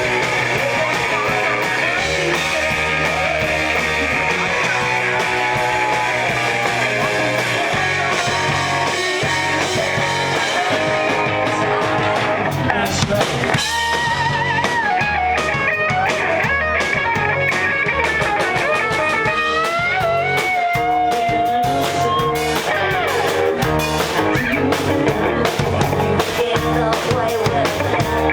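Rock band playing live: electric guitar, bass and drum kit, with a high lead melody of held, sliding notes from about halfway through.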